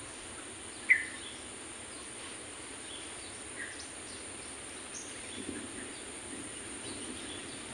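Outdoor ambience: a steady high insect drone with a few faint, brief bird chirps, and one sharper chirp about a second in.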